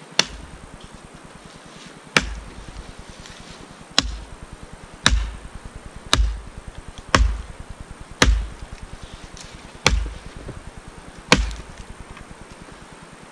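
A hatchet or axe chopping into the trunk of a dry, dead standing tree: nine blows, about one every second or two. Each blow is a sharp crack followed by a dull low thud.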